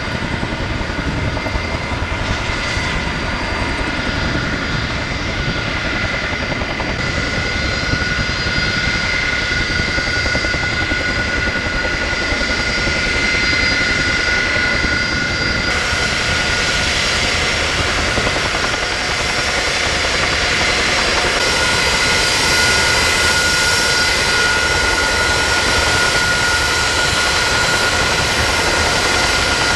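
Jet engines of the Shuttle Carrier Aircraft, a four-engined Boeing 747 carrying the Space Shuttle, running as it taxis: a steady roar with a high-pitched whine, growing gradually louder, with more hiss coming in about halfway through.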